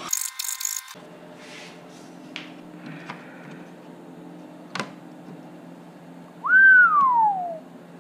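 A single loud whistle, about six and a half seconds in, that rises quickly and then slides down in pitch for about a second. Before it there is a short bright hissing burst right at the start and a few light clicks.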